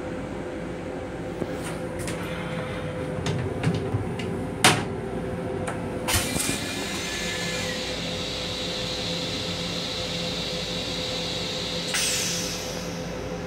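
M7 railcar toilet starting its flush cycle: a click as the flush button is pressed about six seconds in, then a steady hiss for about six seconds, ending in a short falling whistle near the end. Under it runs the steady hum of the railcar, with scattered clicks and a sharp knock in the first few seconds.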